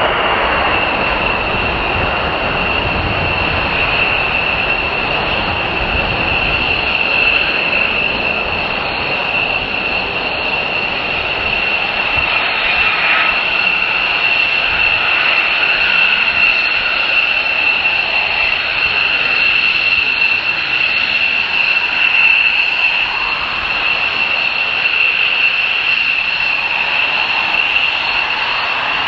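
A Lockheed Martin F-35A Lightning II's single Pratt & Whitney F135 afterburning turbofan at full afterburner on takeoff and climb-out, a loud steady jet roar with a piercing high whine running through it. The deep low rumble is strongest for the first several seconds and thins out as the jet climbs away.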